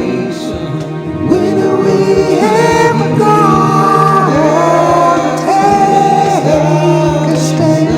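Music: a sung melody that glides between held notes over a sustained low note, from an unmastered raw song recording.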